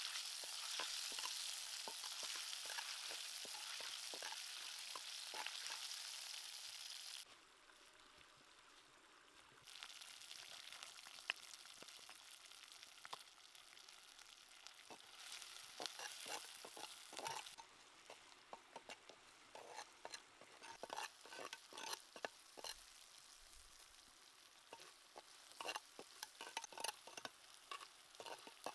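Chilies frying in hot oil in a clay pot, with a steady sizzle that cuts off suddenly about seven seconds in. It gives way to a quieter sizzle with many short scrapes and taps of stirring in the pot.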